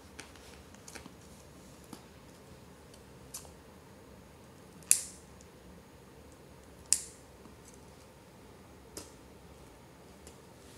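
Small tools for therapy putty being handled: scattered light clicks and taps, with two sharp, louder clicks about two seconds apart midway.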